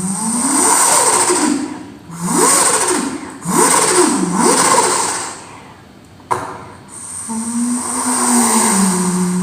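A person imitating a Toyota Supra's engine with his mouth: a vocal engine noise that rises and falls in pitch about four times like revving, then a sharp click about six seconds in, followed by a lower, steadier held drone.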